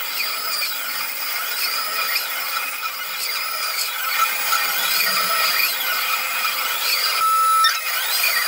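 CNC mill's end mill facing an aluminium block: a steady high-pitched cutting whine whose pitch rises and falls in arcs about every second and a half as the cutter works round its spiral path.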